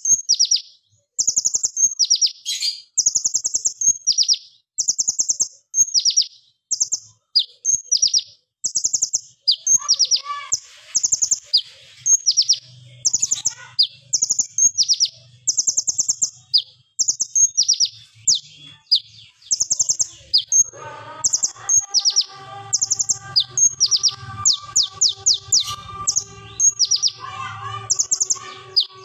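Male kolibri ninja (purple-throated sunbird) singing: rapid, sharp, very high-pitched trilled bursts repeated in quick succession, the 'tembakan' (shot) notes prized in a strong-singing bird. From about two-thirds of the way in, fainter lower steady tones and a low hum join in the background.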